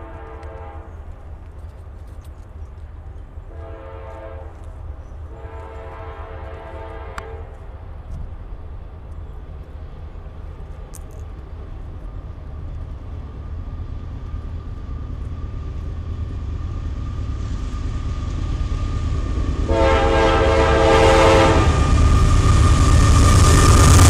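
Approaching CSX freight train's locomotive horn sounding a chord in four blasts: one ending just after the start, two more around four and six seconds in, and a last one about twenty seconds in. Between and under the blasts the low rumble of the diesel locomotives grows steadily louder until they pass close by at the end.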